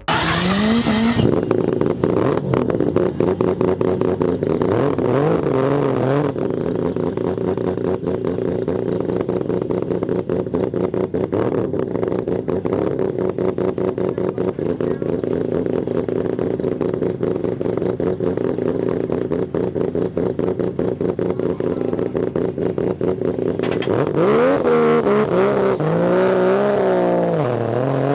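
Mazda RX-7 drift car's three-rotor rotary engine idling with a fast, choppy pulse, blipped briefly a couple of times in the first few seconds. Near the end it revs up and down repeatedly as the car moves off.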